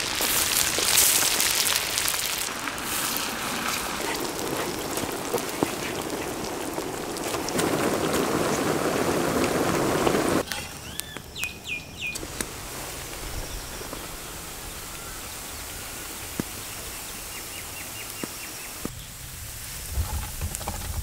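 Marinated boneless mutton frying in a big kadai of hot sesame oil, with a loud, steady sizzle and bubbling. The sizzle cuts off about halfway through, a bird chirps a few times, and a quieter hiss with a few light ticks follows.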